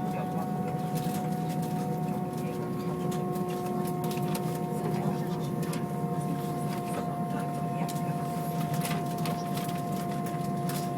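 Steady cabin noise inside an Airbus A320 on the ground, with its IAE V2500 engines and air conditioning giving a low hum under a few steady whining tones. Scattered small clicks and knocks sound in the cabin.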